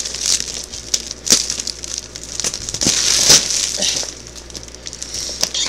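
Clear plastic packaging bag around a vacuum-packed comforter set crinkling and crackling as it is handled, with a few sharper, louder crackles.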